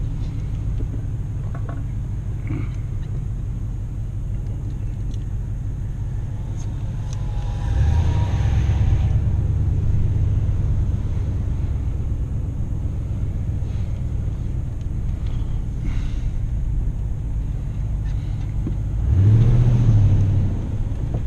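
Car engine and road rumble heard from inside the cabin while driving slowly. The engine speeds up about eight seconds in and again, louder, near the end, then settles back down.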